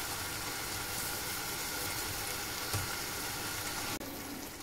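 Chicken keema and potato curry sizzling steadily in a saucepan over the heat, a little quieter near the end.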